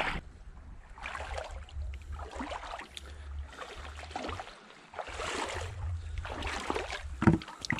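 Shallow seawater sloshing and splashing among rocks in irregular surges, over a low wind rumble on the microphone.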